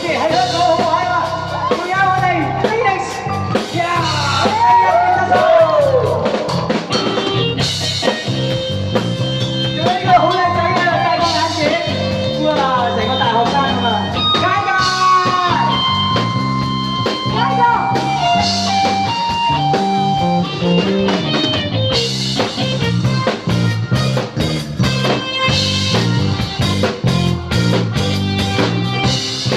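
Upbeat rock-style song with drums, bass and guitar, and a singing voice gliding through phrases in the first half.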